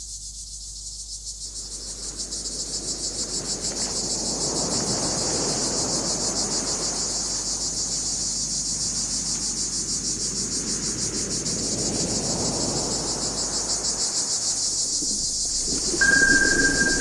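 Crickets chirping in a steady rapid pulse, over a rushing noise that swells in after a second or two and ebbs and rises again. Near the end a steady high tone comes in.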